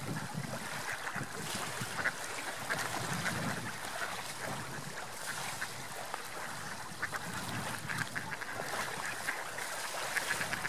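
Mallard ducks quacking, many short calls overlapping throughout, over a steady rush of wind and water.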